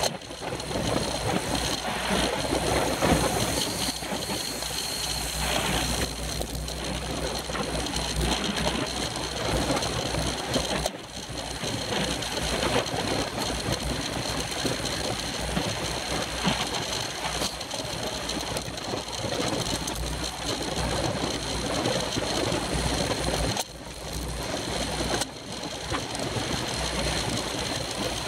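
Wind rushing over the microphone of a camera on a racing bicycle at speed, with tyre and road rumble, broken by sudden drops about a third of the way in and twice near the end.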